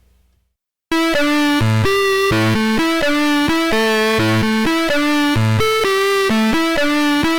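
Background music: after about a second of silence, an upbeat synthesizer-keyboard tune starts abruptly with a repeating bass pattern.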